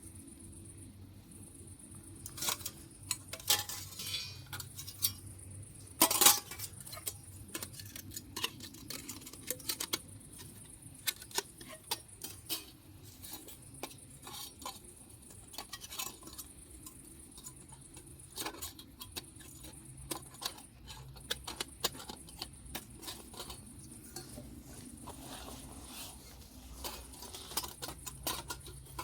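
Irregular small clicks and crackles throughout, with a few louder clinks and a brief scrape in the first seven seconds.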